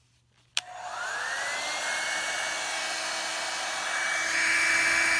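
Revlon One-Step hair dryer and styler switched on with a click about half a second in; its motor whine rises as it spins up over about a second, then it blows steadily, a little louder near the end.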